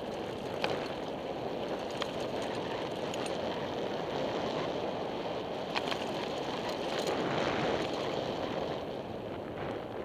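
Steady rush of air and ground noise on a helmet-mounted camera moving down a dirt trail, broken by a few sharp clicks and rattles.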